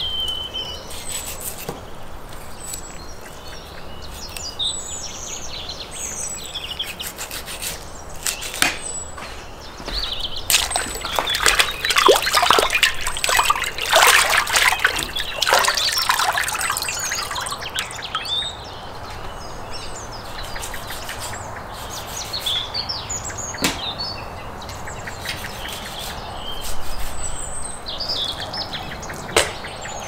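Small birds chirping throughout. In the middle, water splashing and trickling as a raw leg of lamb is dipped and rinsed in a pot of water and lifted out dripping. A few sharp knocks come later on.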